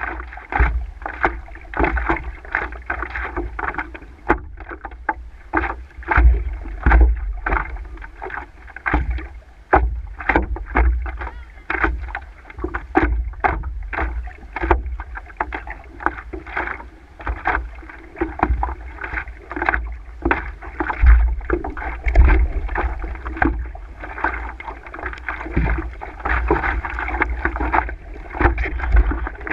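Water slapping and splashing against a stand-up paddleboard and the paddle blade dipping in with each stroke, heard close up from a camera on the board, in a quick irregular run of splashes over a low rumble of wind and water on the microphone.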